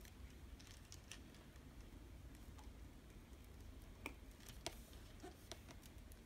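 Faint, scattered clicks of small LEGO plastic pieces being handled and pressed together, with a couple of sharper clicks a little past the four-second mark.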